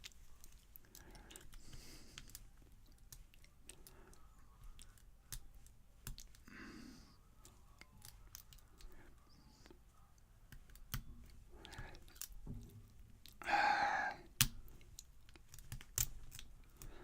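Faint, irregular metallic clicking of a lock pick and tension wrench working the pins of a Yale padlock's five-pin cylinder during picking. Two brief louder sounds come about seven and fourteen seconds in.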